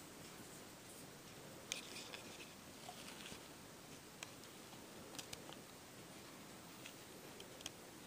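Near silence: faint steady hiss of room tone with a few small, scattered clicks and ticks, a short cluster of them about two seconds in.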